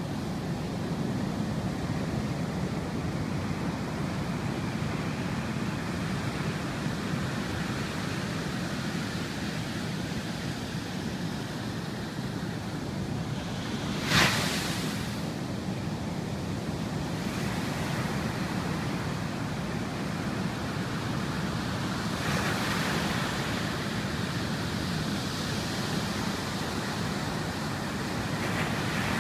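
Ocean surf of about 4–6 ft breaking and washing ashore: a steady rushing noise. There is one sudden sharp crack about halfway through, and a louder swell of hiss a few seconds later.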